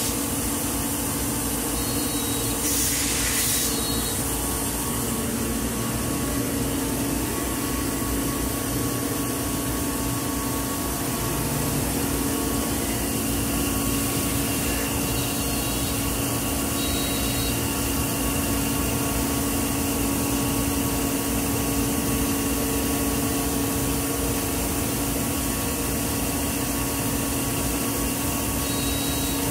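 Weeke Optimat Vantech 480 CNC router running with a steady machine hum made of several fixed tones, with a brief hiss about three seconds in.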